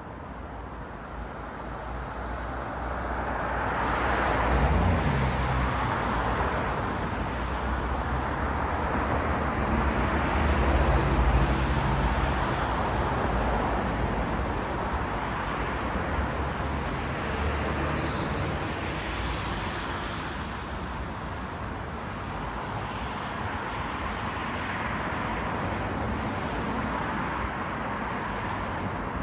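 Road traffic on a city street: vehicles passing one after another, each swelling and fading with tyre noise over a low engine hum. The loudest passes come about four seconds in, around eleven seconds, and near eighteen seconds.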